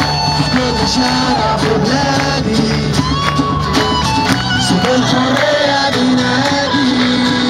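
A live band and singer playing through loudspeakers to a large outdoor crowd, with held, wavering sung notes over a steady beat. The crowd is singing along.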